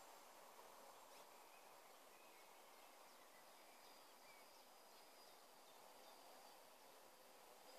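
Near silence: faint outdoor hiss with a few faint, short high chirps.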